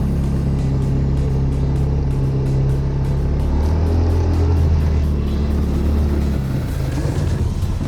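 CFMoto ZForce 500 side-by-side's single-cylinder engine running steadily, then easing off about six and a half seconds in.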